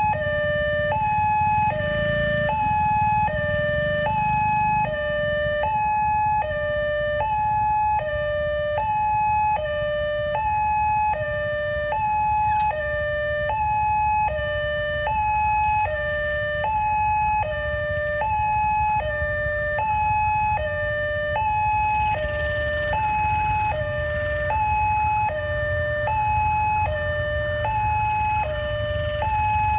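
Railway level-crossing warning siren sounding continuously in an even two-tone pattern, alternating a higher and a lower tone. It is the signal that the gate is closed for an approaching train. A low rumble runs underneath.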